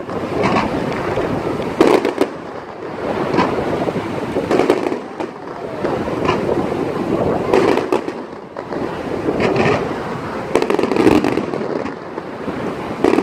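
Fireworks display: a run of sharp bangs from bursting shells, roughly one every second or two, over a steady hissing background.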